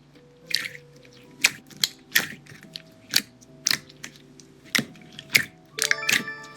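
Computer keyboard keys struck one at a time at an uneven pace, about one or two sharp clicks a second, typing a word.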